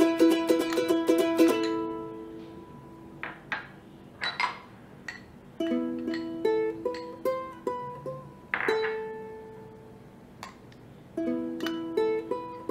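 Background music: a light tune of plucked-string notes, with short pauses between phrases.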